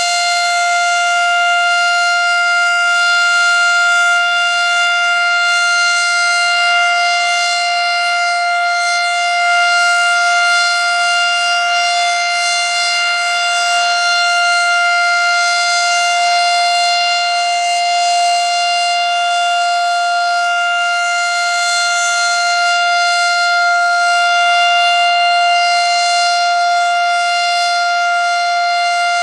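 Federal Signal Model 7 outdoor warning siren sounding its steady three-minute Alert signal: one loud, unwavering tone with many overtones, holding the same pitch throughout.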